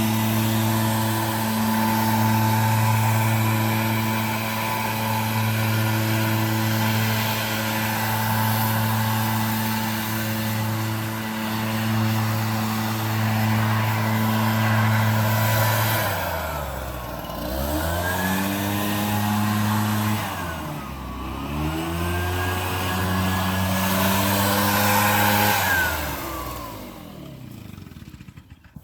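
Gas leaf blower engine running at full throttle. About halfway through, the throttle is let off and brought back up twice, and near the end the engine is shut off and winds down.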